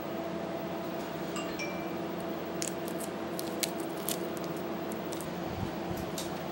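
Hands handling and rolling up a paper surgical mask: scattered light clicks and crinkles over a steady electrical hum.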